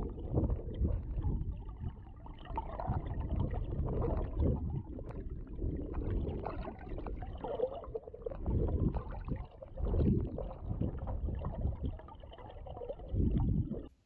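Muffled, surging rush and gurgle of stream water heard through an underwater camera, deep and swelling irregularly, cutting off suddenly near the end.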